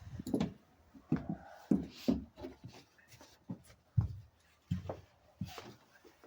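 Irregular knocks and clicks of hand tools and metal hardware being handled and set down, with no power tool running.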